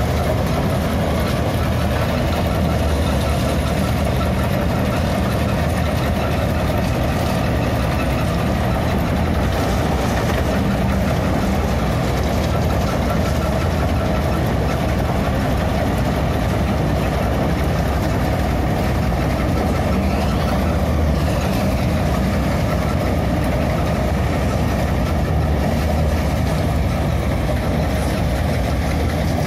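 Corn harvester's engine and cutting machinery running steadily, a continuous loud mechanical drone.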